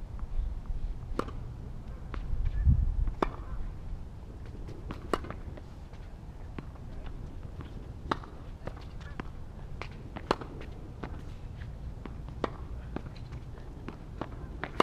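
Tennis rally on a hard court: sharp pops of racket strikes and ball bounces, about one every second or two. A low rumble swells about two seconds in.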